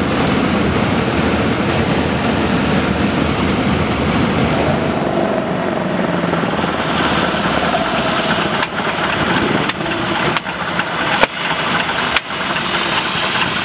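Douglas DC-3's piston radial engine running at low taxi power, propeller turning, heard through an open cockpit side window. Several sharp pops in the second half.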